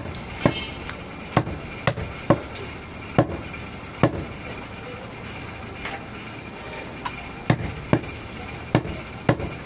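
Butcher's cleaver chopping through mutton on a chopping block: about a dozen sharp, irregular strikes with a pause of about three seconds midway.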